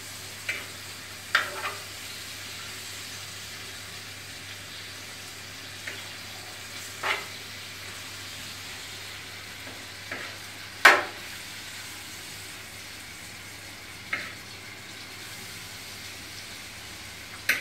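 Diced lamb searing in a hot pan: a steady sizzle, with a few sharp clinks of a metal spoon against the pan as the meat is stirred, the loudest near the middle.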